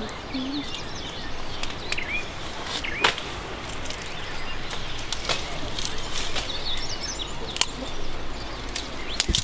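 Dry twigs and brush snapping in several scattered sharp cracks, with birds chirping.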